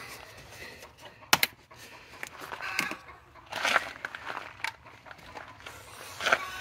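Chickens clucking now and then in the background, with one sharp click a little over a second in.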